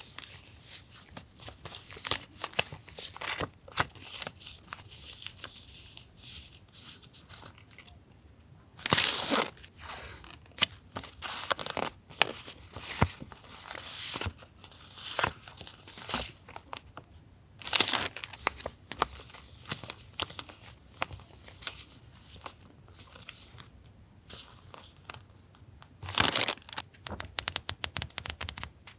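Paper being handled: crisp rustling, crinkling and small clicks of sheets and sticker packs being picked up and shuffled, with three louder swishes of paper sliding, about a third of the way in, past halfway and near the end.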